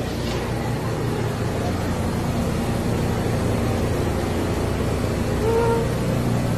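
New York City subway train giving off a steady rumble and low hum beside the platform.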